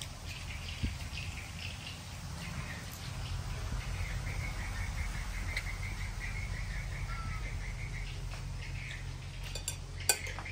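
A small animal's rapid pulsing chirp call, from about four seconds in to about eight, over a low steady rumble. Near the end comes a sharp clink, a spoon knocking the ceramic plate.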